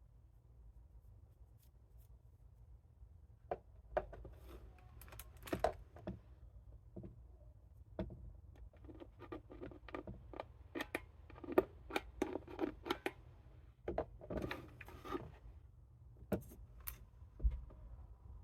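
A string of light clicks, taps and clinks of small hard objects being handled, coming thick and fast in the middle and thinning out near the end.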